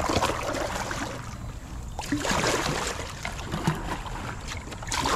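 Double-bladed kayak paddle stroking through the water, with splashing and swishing that swells with each stroke.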